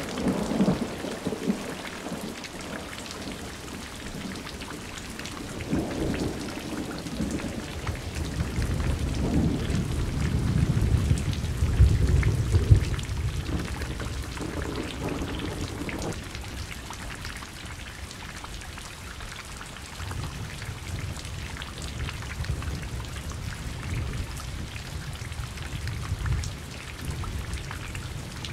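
Thunderstorm: steady rain with rolling thunder. The rumble builds to its loudest about twelve seconds in, fades, and rolls again more softly later on.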